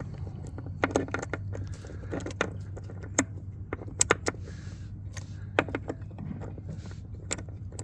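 Irregular metallic clicks and clinks of a spark plug and socket tool against the outboard's cylinder head as a new plug is worked into its hole by hand. A steady low hum runs underneath.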